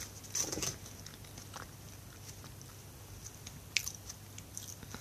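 Faint chewing and handling noises of soft pandesal bread rolls being torn apart and eaten. A short rustling burst comes about half a second in, then a few light clicks, the sharpest one near the end.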